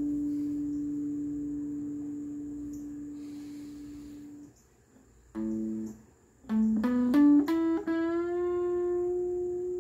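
Single notes picked on a plucked string instrument: a long note rings and fades out, then after a short pause a quick rising run of notes ends on one note that is left ringing.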